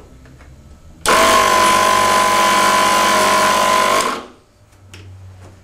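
Built-in air compressor of a Duracell Powerpack 300 switched on about a second in, running steadily for about three seconds, then switched off and winding down.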